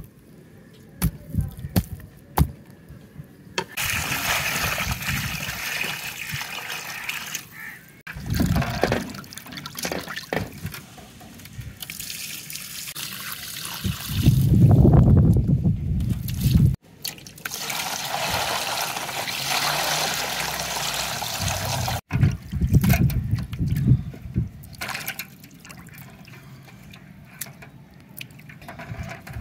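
Water running and pouring in several spells of a few seconds each, with scattered knocks in between.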